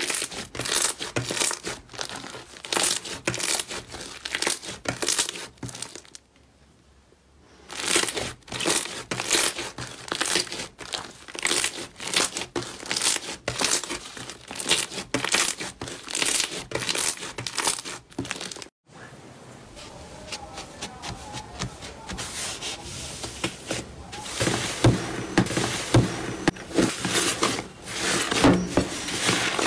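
Hands kneading, pressing and stretching thick slime: a rapid, irregular run of crackling pops as air pockets in the slime burst. The sound stops about 6 seconds in and again just before 19 seconds, and it is softer for a few seconds after the second stop.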